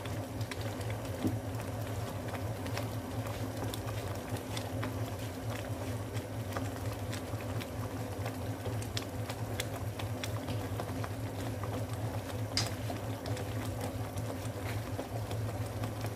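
Thick tomato meat sauce simmering in a frying pan, with scattered small pops and clicks as bubbles burst at the surface, over a steady low hum.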